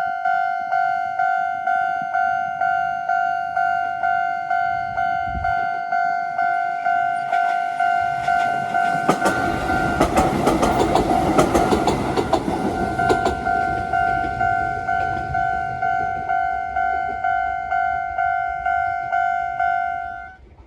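Japanese level-crossing alarm ringing steadily, about two rings a second. An electric train of the Konan Railway passes over the crossing from about eight to thirteen seconds in, its wheels clattering over the rail joints. The alarm stops just before the end as the crossing clears.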